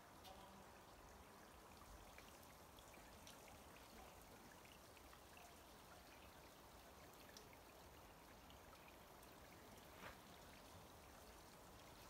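Faint trickling and scattered drips of water from Cooper Canyon Falls, running at a low flow down a mossy rock face into a pool.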